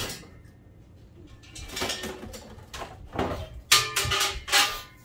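Metal cookware clattering as a broiler pan is pulled out and handled, ending in several sharp, ringing metallic clanks.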